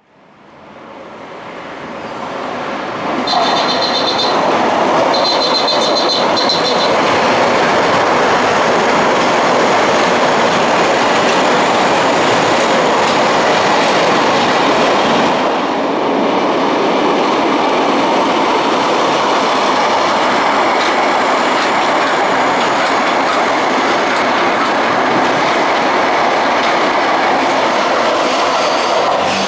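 Bucharest Metro CAF train running, swelling from silence over the first few seconds into a loud, steady rumble of wheels and motors. Two short high-pitched tones sound about three and five seconds in.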